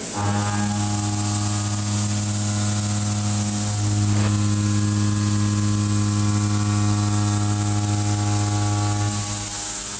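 Kennametal tangential indexable cutter milling 4140 steel on a CNC mill: a steady hum with overtones over a high hiss, shifting slightly about four seconds in.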